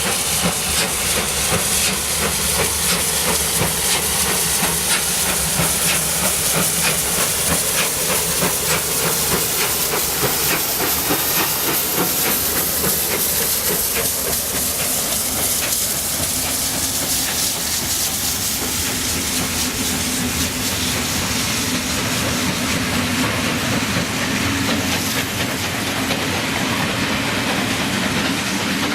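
Steam locomotive 18 201 hissing steam as its train moves, with dense, rapid clicking and clatter from the wheels and rails.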